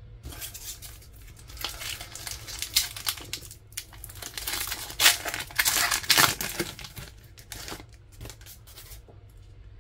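A Pokémon trading-card booster pack's foil wrapper crinkling in the hands and being torn open, with the loudest ripping about five to six and a half seconds in.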